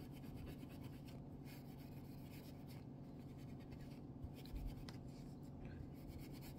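Steel wool rubbed back and forth over the flat side of a straight razor blade, a faint, rapid scratching with a few brief lulls.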